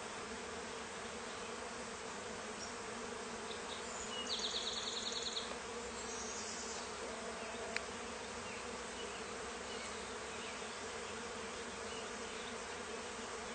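A swarm of honeybees humming steadily, a dense drone from a newly arrived swarm settling on and moving into a baited swarm-trap box. A brief high, rapid chirping rises over it about four seconds in.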